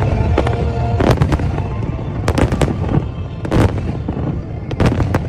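Aerial fireworks display: a series of sharp bangs, some in quick clusters, over a continuous low rumble from more shells going off.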